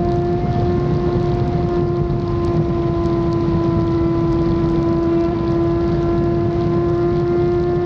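Yamaha FZ6 Fazer 600's inline-four engine running at a steady cruising speed, its note creeping slightly higher near the end, with wind rumbling on the microphone.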